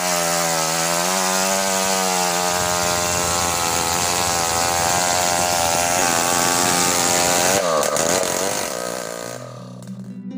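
Chainsaw engine running at steady high revs. About seven and a half seconds in, its pitch dips and rises before it fades away. Plucked-string music starts just before the end.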